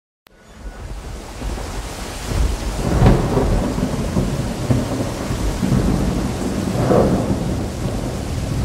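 Thunder and rain, fading in, with rolling thunder rising to a peak about three seconds in and again about seven seconds in.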